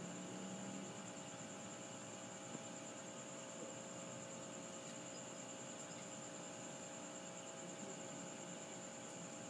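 Steady electrical hum with a thin, high-pitched whine over faint hiss, unchanging throughout.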